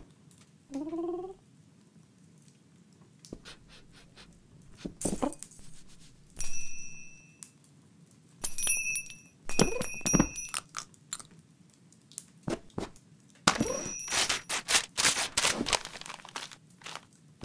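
Cartoon sound effects: a cat's short rising meow about a second in, then Christmas tree ornaments ringing and clinking as the cat bats at them, with more little cat calls. Near the end comes a quick run of clattering as the baubles fall to the floor.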